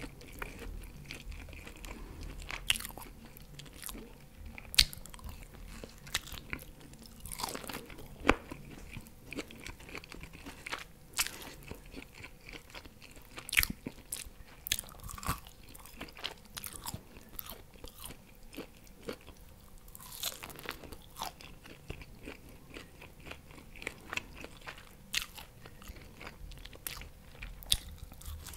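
Close-miked eating of barbecue pork rib meat torn off by hand: irregular chewing and wet mouth sounds with many sharp crunchy clicks at uneven intervals.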